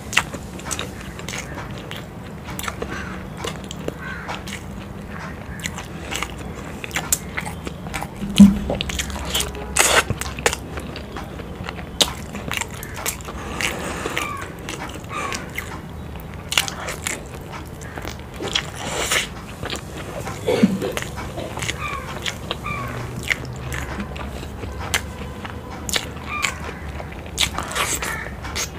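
Close-miked eating of whole fried eggs dipped in spicy curry: steady chewing with wet mouth smacks and sticky clicks, and a few louder bites along the way.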